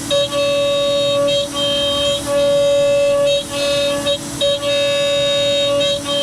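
CNC router milling ash: a steady spindle whine, with the tone of the machine shifting and briefly dipping every second or so as it changes moves, over a running vacuum cleaner.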